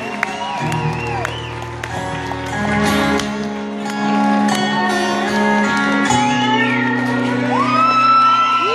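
Steel-string acoustic guitar playing slow, sustained chords that change every couple of seconds, while audience members whistle and whoop over it, with one long whistle near the end.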